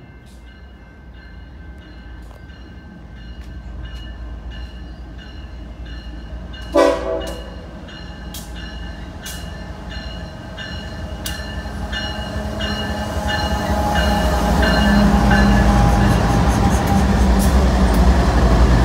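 Westbound BNSF manifest freight train approaching: a bell rings about twice a second, and a short horn blast sounds about seven seconds in. The rumble of the diesel locomotives grows steadily louder toward the end.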